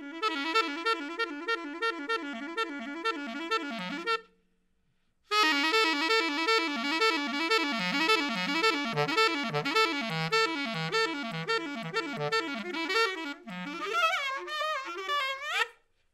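Unaccompanied alto saxophone playing fast, rippling repeated figures in a free-jazz solo, cutting out for about a second a little after four seconds in, then running down in quick descending lines and ending on bent, wavering notes.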